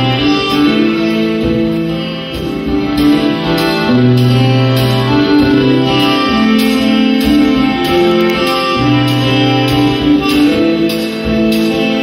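Live band playing a slow instrumental passage on guitars, accordion and drums, with long held low notes and light cymbal taps.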